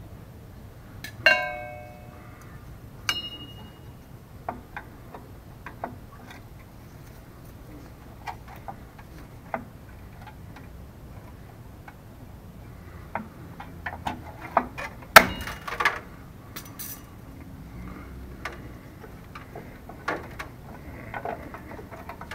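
Hand tools clinking and scraping on the rear drum brake hardware (shoes and return springs) of a 1981 K5 Blazer as the springs are worked off with a brake spring tool. Two ringing metallic clinks come about a second and three seconds in, with scattered light ticks after, then a cluster of sharper metal knocks and clanks about thirteen to seventeen seconds in, the loudest near fifteen seconds.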